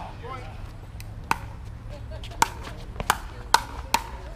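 A pickleball rally: about five sharp pocks of paddles hitting the hollow plastic ball, coming quicker toward the end as the exchange speeds up.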